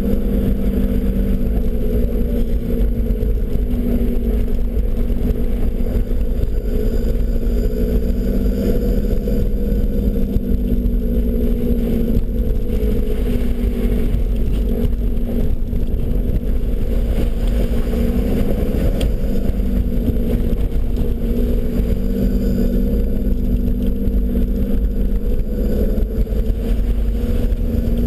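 Nissan Patrol Y61 off-roader driving slowly along a rough gravel track, heard from inside the cabin: a steady engine drone whose pitch drifts slightly up and down, over tyre and road rumble.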